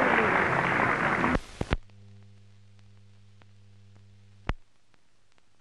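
Loud crowd noise that cuts off suddenly about a second and a half in, leaving the low steady hum of an old film soundtrack with faint ticks, two clicks and one sharp pop about four and a half seconds in.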